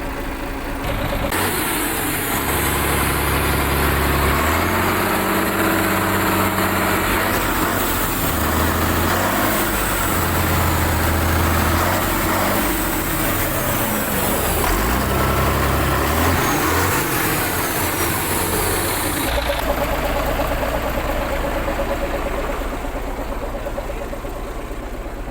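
A Volvo FL10 truck's diesel engine running, its pitch rising and falling several times. From about 19 seconds in it settles into a steadier, slightly quieter run.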